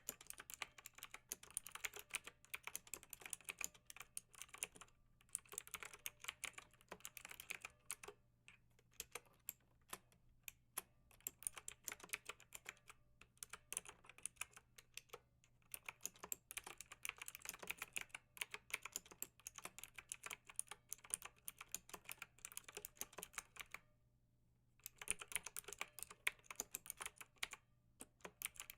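Typing on a computer keyboard: quick runs of key clicks, with short breaks and one longer pause of about a second a little before the end.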